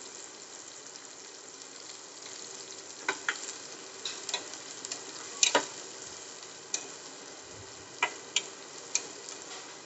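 Green chillies, mustard seeds and curry leaves sizzling in hot oil in a steel pan, stirred with a steel spoon that clinks against the pan several times.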